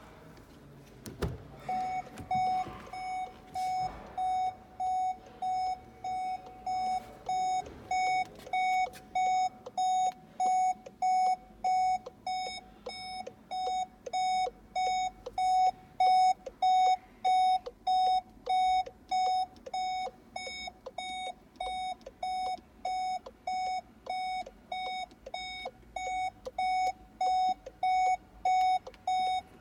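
Volkswagen in-car warning chime beeping steadily: one mid-pitched tone repeating about three times every two seconds, starting just after a sharp click.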